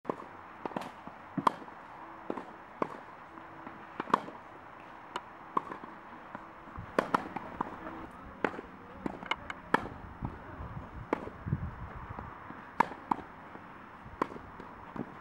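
Tennis practice: racket strings striking the ball in sharp pops, the loudest coming about every three seconds, with fainter ball bounces and strikes in between.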